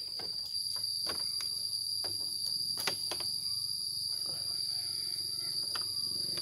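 Insects droning in a steady high-pitched chorus, with a second, higher drone joining about half a second in. Scattered light clicks and knocks sound over it, the loudest about three seconds in.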